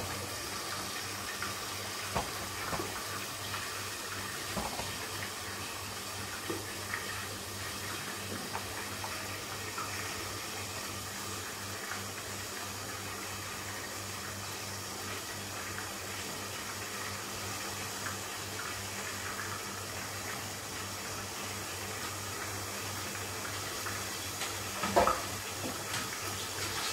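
Chicken frying in hot oil under the glass lid of a frying pan: a steady sizzle with scattered small pops, and one louder knock near the end.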